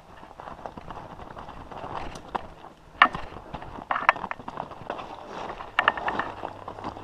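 Mountain bike riding down loose rocky scree: tyres crunching over stones, with several sharp clattering knocks as the bike hits rocks, the loudest about three seconds in.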